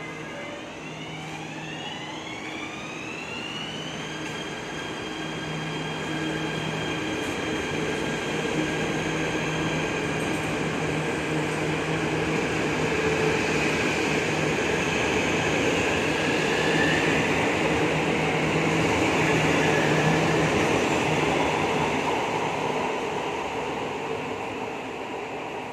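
KTM ETS electric train pulling out and accelerating past the platform. Its traction motor whine rises in several pitches at once for about four seconds and then holds steady, while the rumble of the wheels on the rails builds as the coaches pass and fades near the end.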